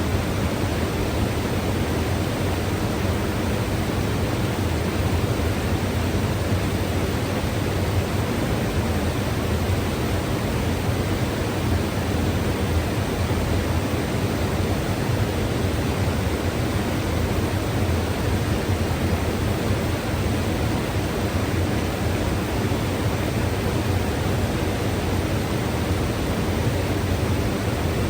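Mountain river rushing steadily, a dense, even noise of flowing water with a deep low rumble.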